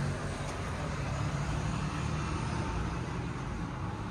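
Steady low rumble of city street traffic, with no single event standing out.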